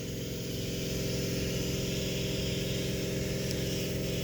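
Pressure washer running steadily: a constant engine drone.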